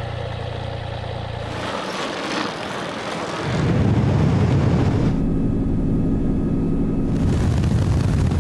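An engine drone with rushing air, breaking off abruptly about two seconds in and coming back louder from about three and a half seconds in.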